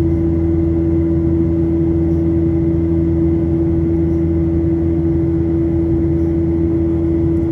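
Cabin noise of a Boeing 737-900 in the climb, heard over the wing, from its CFM56-7B26 turbofan engines: a steady drone with one steady humming tone over a low rumble and rushing air.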